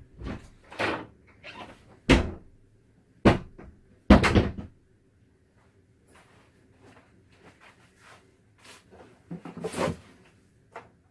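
Irregular sharp knocks and clunks, like things being handled, set down or shut. The loudest come about two, three and four seconds in, then a quiet stretch, then another clunk near the end.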